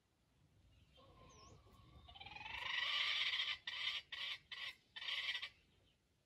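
A buzzing animal call that swells for about two seconds, holds, then breaks into several short pulses before stopping.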